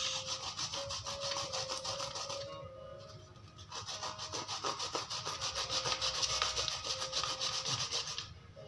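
A fresh root being grated by hand on a grater: a fast rasping run of short back-and-forth strokes. It stops about two and a half seconds in and starts again about a second later.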